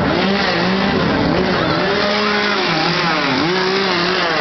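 Gasoline chainsaw revving up and down over and over, its engine pitch rising and falling every half second to a second.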